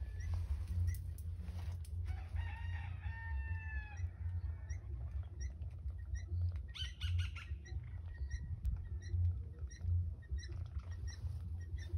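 Fowl calling: one drawn-out call lasting about two seconds, slightly falling in pitch, then a quick run of sharp, rapid notes about seven seconds in, over a steady low rumble.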